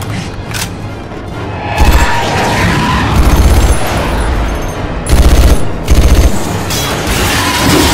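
Bursts of rapid automatic gunfire in a film action sequence, four loud bursts about 2, 3, 5 and 6 seconds in, over action music.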